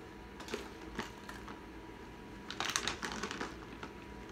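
Small plastic toy pieces and packaging being handled: a couple of light clicks, then a short burst of crinkling and clicking about two and a half seconds in.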